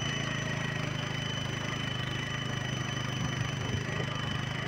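Motorcycle engine running steadily at low speed while riding, with a few thin steady high tones above it.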